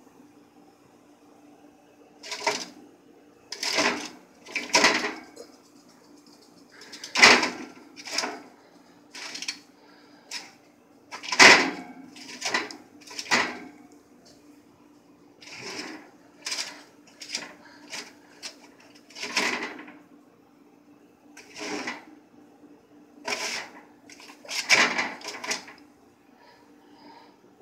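Metal pan of pine cones and wire oven rack being handled: about twenty irregular short clatters and scrapes, over a steady low hum.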